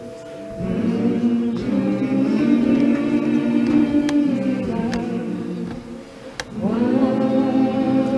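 Gospel choir singing a slow hymn in long held notes, with a short break between phrases about six seconds in.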